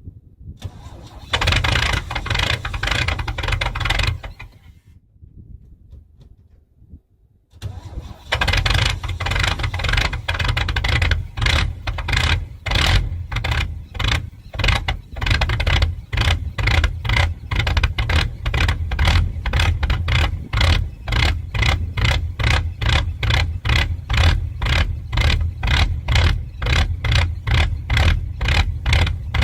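1992 GMC Sonoma pickup's engine on a cold start: a first crank of about three seconds that stops, then after a pause of a few seconds a second attempt that keeps going with an even, rhythmic pulse of about two to three beats a second.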